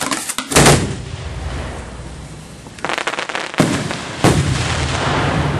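Fireworks shells firing from ground mortar racks close by: a sharp bang at the start, a louder one about half a second later, a rapid volley of cracks near three seconds, two more heavy bangs soon after, and a lingering rumble.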